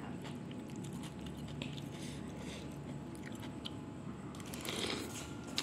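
Close-up chewing and biting of a mouthful of instant noodles with rice, with scattered small mouth clicks and a louder stretch near the end.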